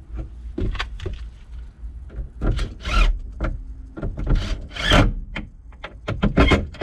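Cordless drill driving screws into a small poplar hardwood block behind a seat bracket, in several short bursts with clicks and rubbing between them.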